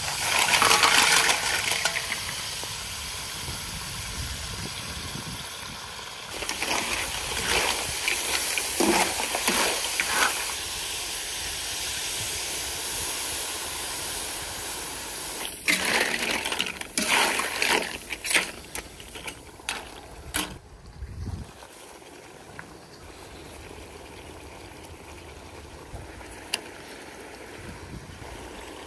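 Clams and scallops sizzling in hot olive oil in a large steel disc pan, with loud hissing bursts of steam as white wine is poured in; the sizzle dies down to a quieter steady hiss about two-thirds of the way through.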